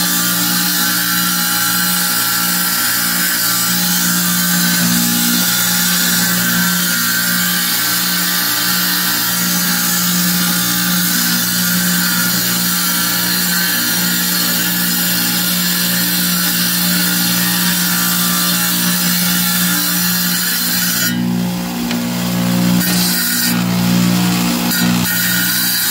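Wet tile saw running steadily while a small stone is held against its water-fed blade and ground into shape. The sound of the cut changes twice a few seconds before the end, as the stone is pressed harder to the blade.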